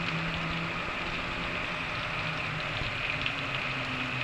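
Pressure washer running steadily, a low motor hum under the constant hiss of its water jet spraying against a metal gas grill.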